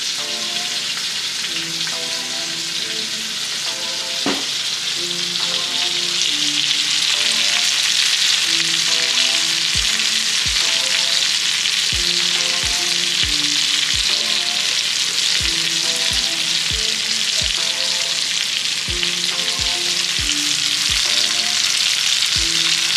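Seasoned northern snakehead fillets sizzling in hot oil in a cast iron skillet, a steady frying hiss that grows a little louder about six seconds in. Quiet background music with a beat runs underneath.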